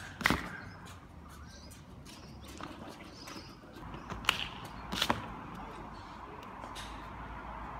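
A parkour kong precision landing: shoes slapping down hard onto the top of a wall just after the start, the loudest sound here. A few lighter sharp knocks follow about four and five seconds in, over faint bird chirps.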